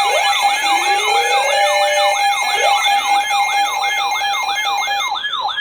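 Emergency Alert System attention signal heralding a National Weather Service flood warning: a loud electronic alarm with a steady tone under a warbling, siren-like sweep that repeats about three times a second, cutting off sharply about five and a half seconds in.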